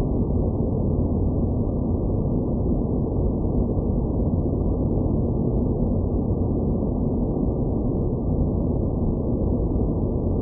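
Space-planet ambience sound effect: a steady, muffled low rumble of noise with nothing in the upper range and no separate events.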